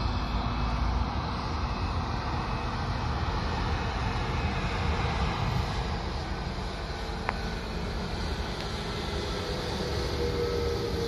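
Airbus A320neo jet engines (CFM LEAP-1A) heard during the landing: a steady, even rush of engine and air noise with a strong low rumble.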